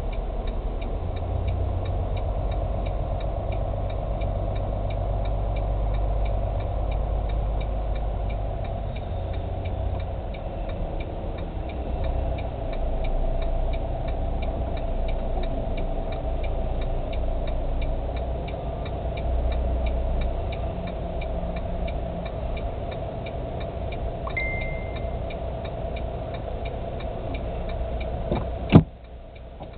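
Tractor-trailer's diesel engine running at low speed, heard from inside the cab, with a steady regular ticking over it. Late on there is a short beep, then a sharp loud click near the end, after which the engine sound drops off.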